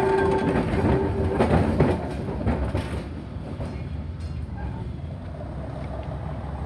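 Vintage electric works tram (a rail scrubber car) rolling slowly over curved depot track: wheels clicking over rail joints and points, with a steady whine from the motors and gears, fading after about two seconds into a low steady rumble.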